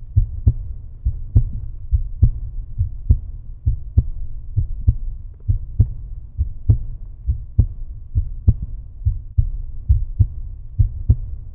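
Outro music: a steady, heavy low drum beat, a little under one strong beat a second with lighter beats between.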